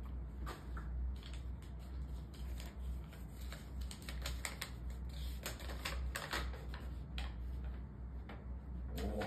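Rapid, irregular small clicks and taps from something handled close to the microphone, over a steady low hum.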